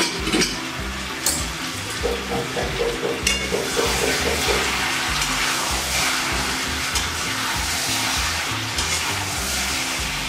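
Vegetables sizzling as they fry in a metal kadai over a gas flame. A spatula scrapes and clicks against the pan a few times in the first few seconds as the food is stirred.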